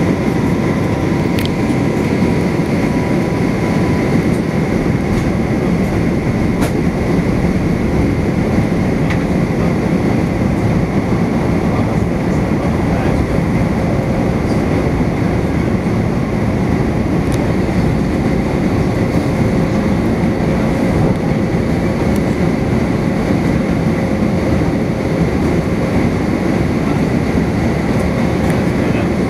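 Steady cabin noise of an Airbus A350-900 airliner in descent: an even low rumble of airflow and the Rolls-Royce Trent XWB engines, with a faint high whine throughout.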